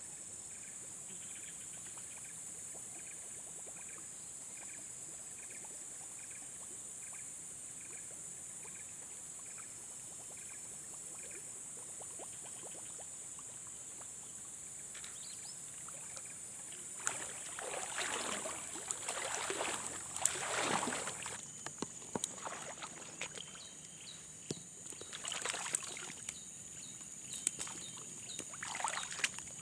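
Steady high-pitched insect drone, with a short chirp repeating about twice a second for the first dozen seconds. Past the middle, irregular splashing noises come and go several times.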